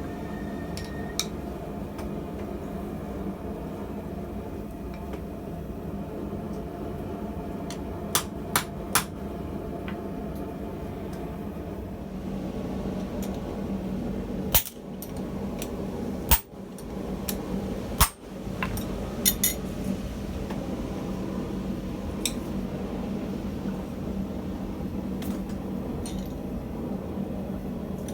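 Hammer striking steel on an anvil while forging tong jaws: a handful of sharp, separate metallic blows, three quick ones about eight seconds in and the loudest three spaced a couple of seconds apart around the middle, over a steady low hum.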